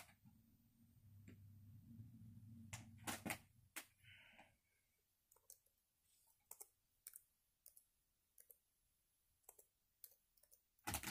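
Near silence with faint, scattered clicks and taps from computer use, spaced irregularly about a second apart. A faint low hum is under the first few seconds.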